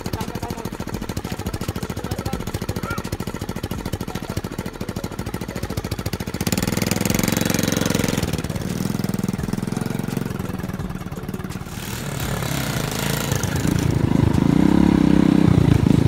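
Small motorcycle engine idling with a rapid, even putter, then revving up about six seconds in and again, louder, over the last few seconds as the bike pulls away.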